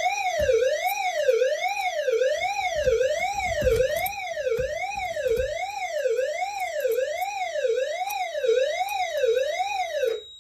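Notifier NFS2-640 fire alarm system's suppression-release alert tone: a loud siren-like tone sweeping smoothly up and down, about one and a half sweeps a second. It signals that the agent suppression releasing system has been activated.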